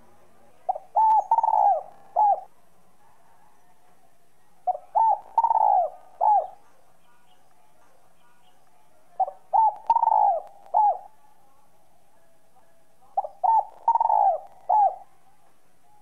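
Spotted dove (Streptopelia chinensis) cooing in a clear, whistle-toned voice: four phrases about four seconds apart, each a short run of four or five notes with one longer, louder coo in the middle.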